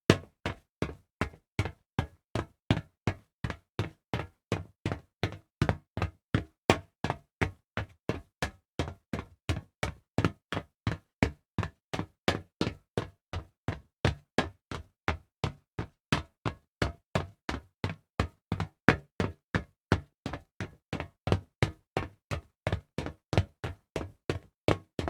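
Fast footsteps on hollow metal, an even run of about three hollow, knocking steps a second.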